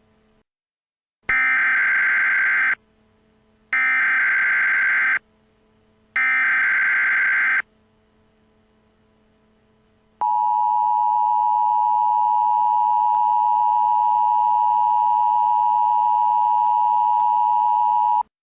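Emergency Alert System header: three bursts of SAME digital data tones, about a second and a half each with short gaps between, then the two-tone EAS attention signal held steady for about eight seconds and cutting off suddenly.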